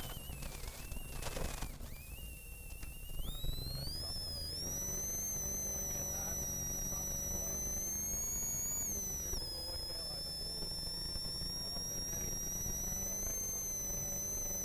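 Inside the cabin of a turbocharged Ford Sierra RS Cosworth rally car at speed: the engine running under load with a strong high-pitched whine that climbs in pitch as the car accelerates about three seconds in, holds steady, and drops briefly near ten seconds. A short noisy burst comes about a second and a half in.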